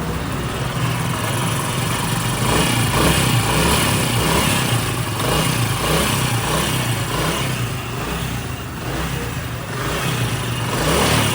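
Honda CD70 motorcycle's small single-cylinder four-stroke engine running steadily after a valve tappet adjustment, its loudness rising and falling a little. The tappet noise is gone and the engine sound is now correct, as the mechanic has it.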